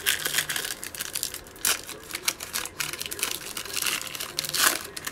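Foil wrapper of a Mosaic football trading card pack being torn open and crinkled by hand: a dense crackle with sharper rips near the middle and near the end.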